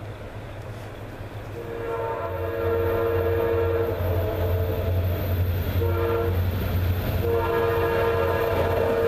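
Approaching Norfolk Southern diesel locomotive sounding its multi-note air horn: a long blast, a short one, then another long blast starting near the end. Under it the locomotive's diesel engine and the train's rumble grow louder as it comes closer.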